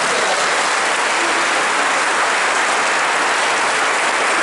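Congregation applauding: steady, even clapping with no break.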